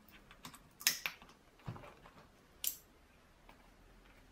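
Sharp clicks and a duller knock of a cast-metal Toyota 4A-GE throttle body and its plastic throttle position sensor being handled by gloved hands and set down on a paper-covered bench. The clicks come in the first three seconds.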